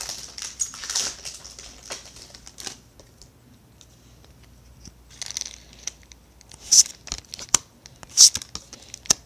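Foil wrapper of a Yu-Gi-Oh booster pack crinkling and being torn open, with the paper cards then handled. After a short lull there are a few sharp snaps.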